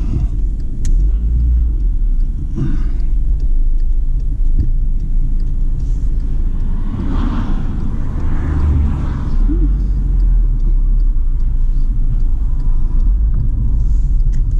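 Car driving, heard from inside the cabin: a steady low engine and road rumble, with a swell of louder noise around the middle.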